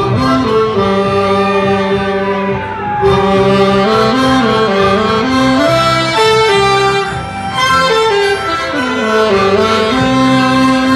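Harmonica playing a slow melody of held notes, cupped against a hand-held microphone and amplified.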